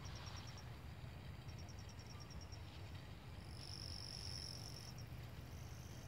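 Night insects trilling faintly: short runs of quick high chirps, about ten a second, then a steady high trill a little past halfway, over a low rumble.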